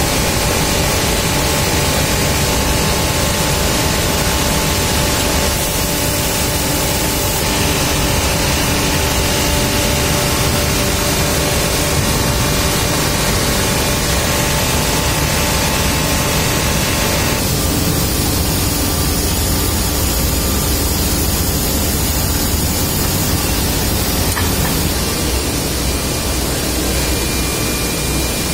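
Loud, steady machinery noise of an aluminium ingot casting and stacking line: a constant hiss-like din with a few steady hums underneath. The middle of the sound drops off a little about two-thirds of the way through.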